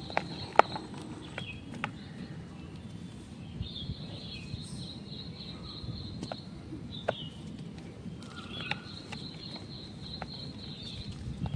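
Dyed gym chalk crumbling: scattered sharp crackles and ticks a second or two apart, with faint birds chirping in the background.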